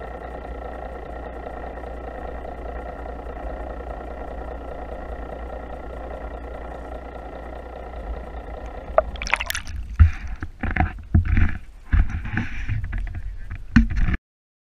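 Boat engine heard muffled through the water, a steady hum of several tones over a low rumble. About nine seconds in, irregular loud splashing and gurgling as the camera comes up through the surface, then the sound cuts off abruptly.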